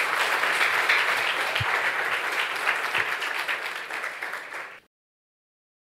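Congregation applauding, a steady clapping that slowly fades and then cuts off abruptly near the end.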